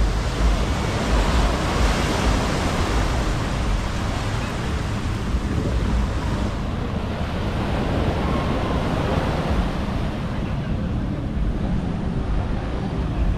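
Surf washing onto a sandy beach, with wind buffeting the microphone. The hiss of the wash eases off about halfway through.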